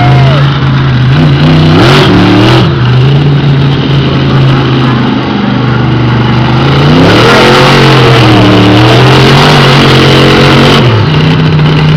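Monster truck engine running loud, revving up and back down several times, with one long rise and fall about seven seconds in.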